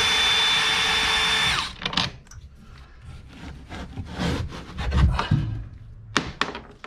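A power drill/driver backs out a screw, running at a steady whine for about a second and a half and then stopping. Scattered clicks and knocks of handling follow.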